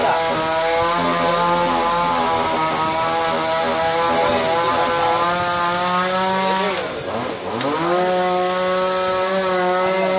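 Small petrol brush-cutter engine fitted with a water-pump head, running at high revs. About seven seconds in it briefly drops back in speed, then revs up again and holds steady.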